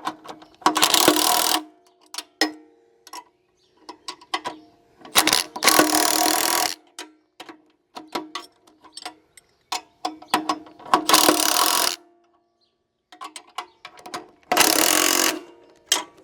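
Ratchet wrench clicking as two bolts are wound in to force a stuck bearing off a wood chipper's shaft. Single clicks come in between four spells of rapid ratcheting, each about a second long.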